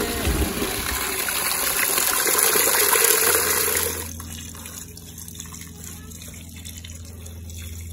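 Water running from a garden standpipe tap into a plastic bucket, a steady rushing splash that cuts off about four seconds in, leaving a quieter low hum.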